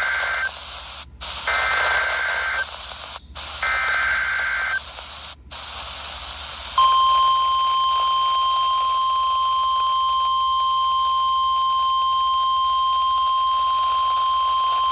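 NOAA Weather Radio emergency alert over radio hiss. The first of three SAME digital header bursts ends about half a second in, and two more follow, each about a second of two-tone data screech. After a short gap, the steady 1050 Hz warning alarm tone sounds from about seven seconds in, marking a new severe thunderstorm warning.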